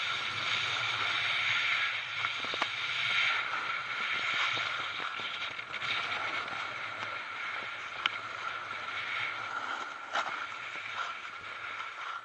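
Snowboard sliding and carving over packed snow, a steady scraping hiss, with wind on the microphone.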